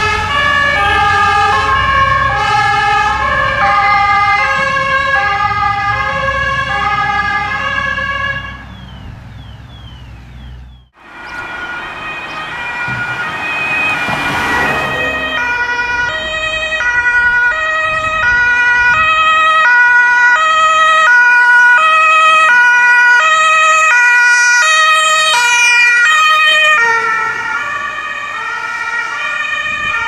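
Two-tone emergency-vehicle sirens (German 'Martinshorn') of fire-brigade vehicles driving off, the two pitches alternating over engine noise and fading out about eight seconds in. After a brief break, a rushing noise comes in and an ambulance's two-tone siren takes over, loudest in the second half and easing off near the end.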